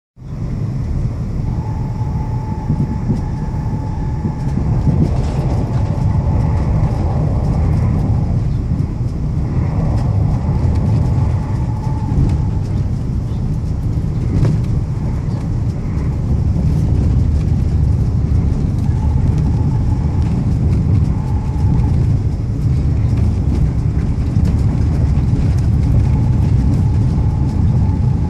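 Steady low rumble of a moving passenger train heard from inside the carriage, with a thin tone that comes and goes several times.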